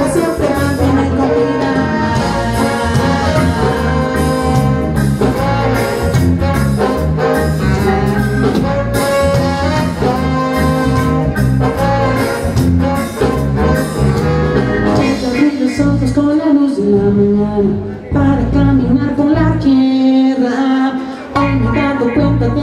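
Live band playing through a PA with a horn section over guitars, bass and drums; the bass and drums drop out briefly twice near the end.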